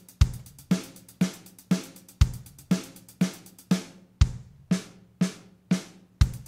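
Logic Pro X metronome click played on a Drum Kit Designer drum kit instead of the default Klopfgeist click: a stronger bass-drum hit on each bar's downbeat every two seconds, with lighter drum and hi-hat hits on every beat, two a second at 120 bpm. About four seconds in, the quicker in-between subdivision ticks stop, leaving one hit per beat.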